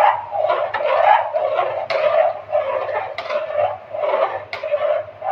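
Metal ladle stirring thick rice and milk in an aluminium pot, scraping against the pot in repeated strokes about two or three times a second.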